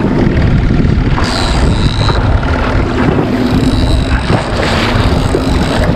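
Strong wind buffeting the microphone over choppy water sloshing against the hull of a small boat.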